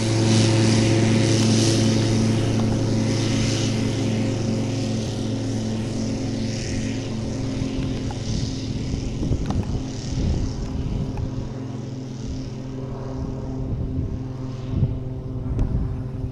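Eurofox glider-tug's propeller engine running steadily under power during an aerotow takeoff roll, slowly fading as it pulls away. Irregular low rumbles of wind on the microphone in the second half.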